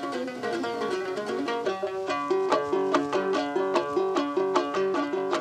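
Komuz, the Kyrgyz three-stringed lute, played solo in a quick strummed rhythm; after a freer opening it settles about two seconds in into a steady repeating figure.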